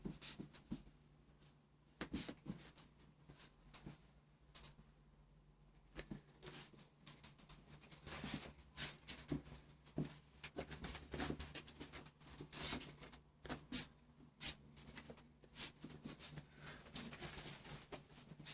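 Cavapoo puppy scrambling about, its paws and claws pattering and clicking in quick irregular runs, sparse at first and busier from about six seconds in.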